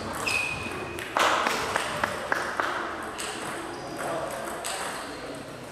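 Celluloid-type table tennis balls bouncing with sharp, irregular ticks on tables and floor in a busy hall with several games going, with a brief high squeak near the start and faint background chatter.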